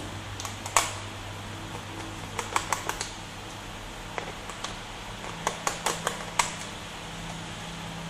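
Irregular small clicks and taps of a screwdriver and loose screws against a laptop's plastic bottom case, over a steady low hum.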